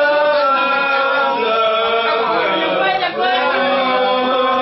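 A group of men singing together, holding long drawn-out notes in short phrases, like a chant.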